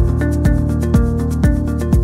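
Electronic background music with sustained notes and a steady kick-drum beat about twice a second.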